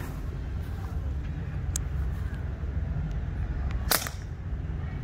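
A single sharp crack about four seconds in: one shot from a .22 Brocock ConceptLite PCP air rifle, over a steady low outdoor rumble.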